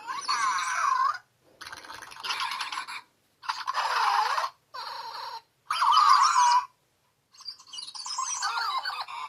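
Zhu Zhu Pets robotic toy hamster giving out electronic squeaks and chirpy warbles through its small speaker, in about six short bursts with abrupt silent gaps between them.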